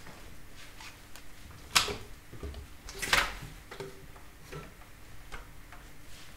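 Faint room tone with two short knocks about a second and a half apart, and a few fainter clicks.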